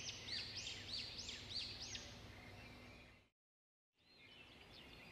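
Faint bird song: a run of repeated arching chirps, about three a second, that fades away. About three seconds in, the sound cuts out completely for under a second, then faint chirping returns.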